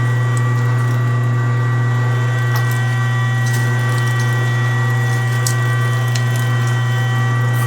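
LEM #22 Big Bite 1 HP electric meat grinder running steadily with a strong low hum, grinding deer meat. A few faint ticks sound over it.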